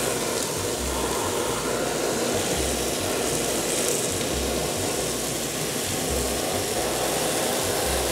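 Handheld butane kitchen torch burning with a steady rushing hiss as its flame is played over sate maranggi skewers in a grill pan, searing the meat.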